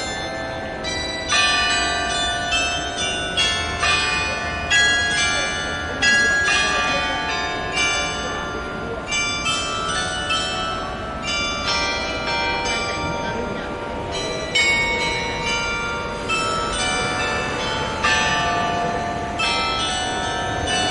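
Several church bells of Notre-Dame Cathedral, Luxembourg, ringing together in a peal, struck in quick, irregular succession, with each note still sounding as the next strikes.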